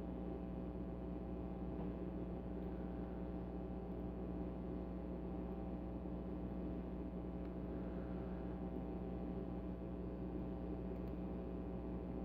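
A steady low hum, with a few faint light ticks from a hook pick working the security pins of a Defiant pin-tumbler lock.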